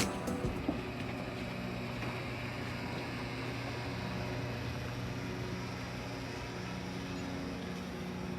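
A steady, low engine hum with an even rumble under it. At the very start, music cuts off.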